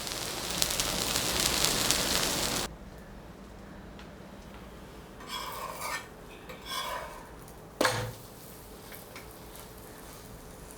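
An oothappam sizzling on a hot griddle, cutting off suddenly a little under three seconds in. Afterwards a few short scrapes and one sharp clack near the eight-second mark.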